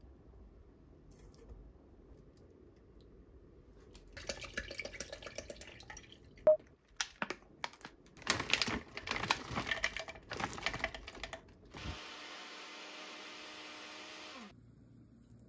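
Frozen blueberries clattering and rattling into a plastic blender jar, with the plastic bag rustling. Near the end a countertop blender runs with a steady whir for a couple of seconds, then winds down and stops.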